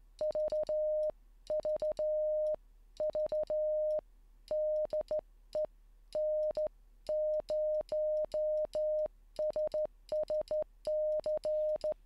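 Morse code (CW) sidetone from CWCom software: a single steady beep keyed on and off by hand to imitate bug-style (weighted semi-automatic key) sending. Quick runs of short dits are set against longer dahs, with a click at each key-down and key-up.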